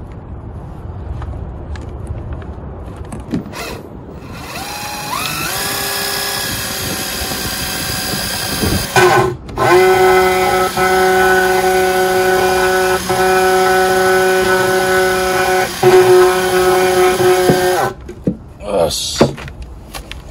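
Cordless drill driving a drill-powered oil transfer pump, pumping gear oil out of the can and into the drivetrain: a motor whine that rises as it spins up about four seconds in, runs steadily, stops briefly near nine seconds, then runs on louder until it cuts off near eighteen seconds, as the pump draws up the last of the oil.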